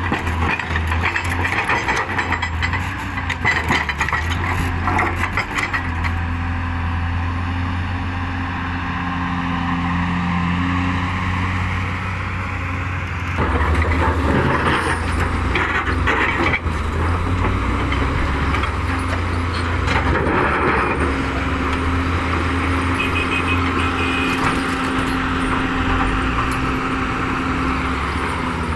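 Diesel engines of heavy earthmoving machines, a loader and an excavator, running under load with a steady low drone. Scattered knocks and clanks come in the first few seconds and again about halfway through.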